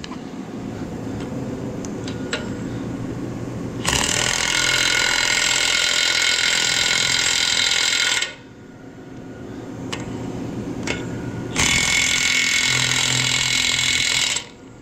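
DeWalt half-inch-drive cordless impact wrench hammering the nuts tight on new muck-grab tines. There are two bursts of rapid impacting, one about four seconds long and then one about three seconds long, each after a quieter stretch.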